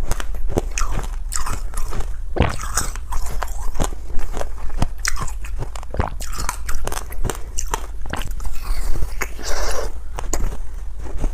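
Close-miked crunching of ice being bitten and chewed: a run of irregular sharp cracks, with a denser grinding crunch of chewing near the end.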